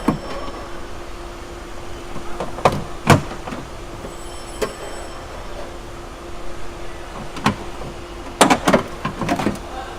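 Irregular clicks and knocks of metal parts and tools being worked inside a Lexus GX470 door while the door lock assembly is forced into place, which is not going easily. The loudest knock comes about three seconds in, with a quick cluster near the end, over a steady hum.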